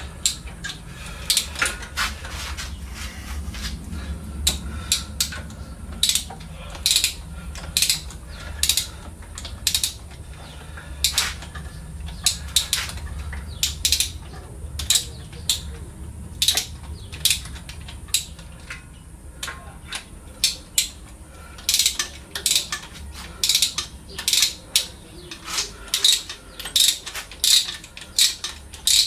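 Hand ratchet wrench clicking in short runs of strokes with pauses between, as bolts are worked on an engine; the clicks come more often in the last few seconds.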